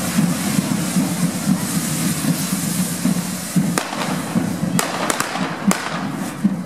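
Handheld correfoc fireworks spraying sparks with a steady hiss, and several sharp firecracker cracks in the second half.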